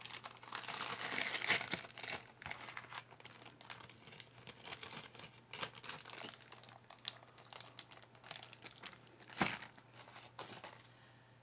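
Crinkling of packaging being handled, busiest in the first couple of seconds, with scattered small clicks and one sharper knock about nine and a half seconds in.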